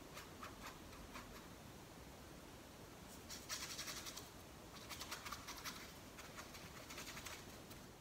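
Paintbrush bristles scrubbing acrylic paint onto a stretched canvas: faint scratchy strokes that come in several short bursts.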